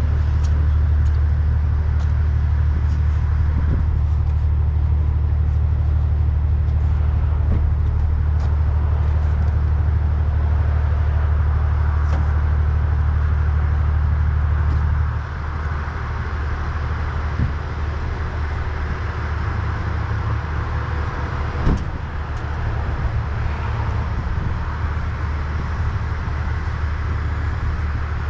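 A car driving: a steady, loud, low road-and-engine rumble that drops suddenly in level about halfway through.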